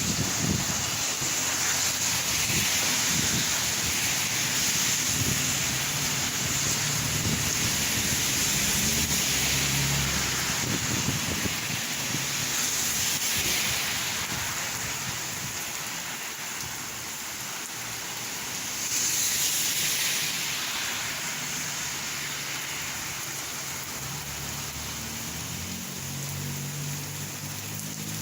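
Rain falling and splashing as a steady hiss, swelling louder about thirteen seconds in and again about nineteen seconds in, with a patchy low rumble underneath at times.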